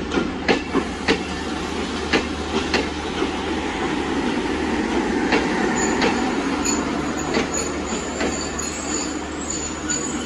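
Passenger coaches of the Rupsha Express rolling slowly past. The wheels clack over rail joints in quick groups of two or three clicks over a steady rumble, and from about halfway a thin high-pitched squeal comes and goes as the train slows into the station.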